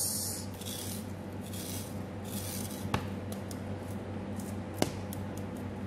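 Knife scraping kernels and juice off a cooked sweet corn cob into a plastic bowl, in repeated rasping strokes, with two sharp clicks of the blade against the bowl about three and five seconds in.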